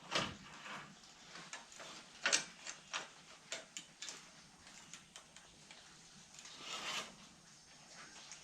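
Irregular light metallic clicks and taps as a band sawmill blade is set in place on a blade sharpener and its clamp adjusted; one sharper knock about two seconds in.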